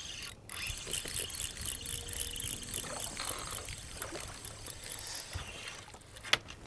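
Water splashing and lapping in irregular, crackling bursts, with one sharp click near the end.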